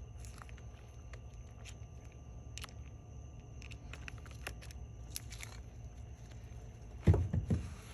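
Faint clicks and light scraping from metal parts being handled as a pin is worked into a washer suspension rod, over a steady low hum. A brief louder burst comes about seven seconds in.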